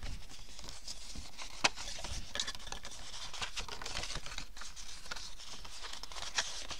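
Cardstock being handled and folded by hand, the paper rustling and crinkling, with a sharp tap about a second and a half in. Steady rain hiss runs underneath.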